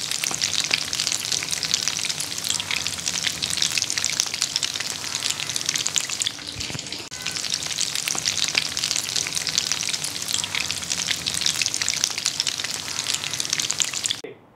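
Breaded chicken nuggets shallow-frying in medium-hot oil in a pan: a dense, steady sizzle and crackle of bubbling oil. It dips briefly about six seconds in, then carries on.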